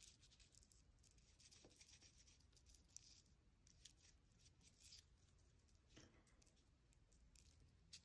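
Faint scratching of a black oil pastel stick rubbed across paper in short, irregular strokes.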